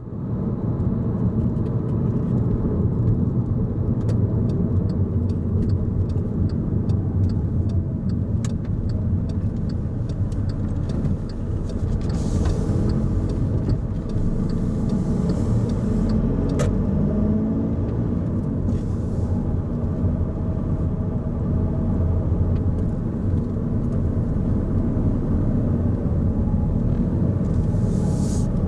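Car driving on a road, heard from inside the cabin: a steady low engine and tyre rumble. A run of light ticks plays over the first third, and short hissing swells come about halfway and near the end.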